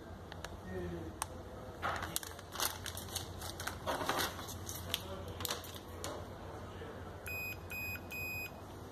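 Crinkling and clicks as a plastic bag and cables are handled, then a digital multimeter's continuity beeper sounds three short beeps in quick succession as the test probes touch the cable's plug, each beep marking an electrical connection between the probe points.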